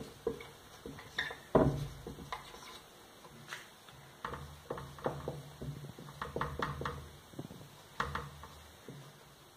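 Whiteboard marker writing on the board: a string of short squeaks and taps as letters are stroked out, with a louder knock about one and a half seconds in.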